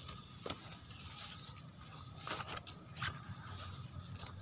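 Soft rustling and scraping with scattered small clicks, as cucumber leaves and vines brush against a handheld phone moving through the plants.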